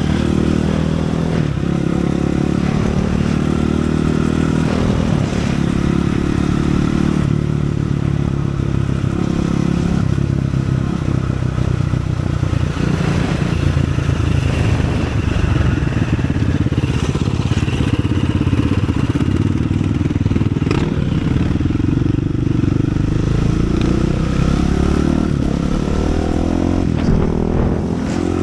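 Single-cylinder 450 cc four-stroke supermoto engine running under way, its revs rising and falling repeatedly as it is ridden, over a steady rushing hiss.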